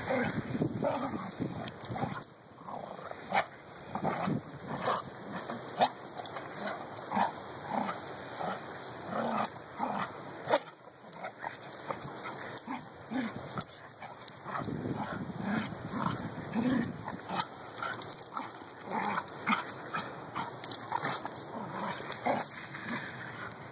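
Two beagle-like hounds play-fighting, giving many short, irregular vocal noises, with a few sharp louder ones.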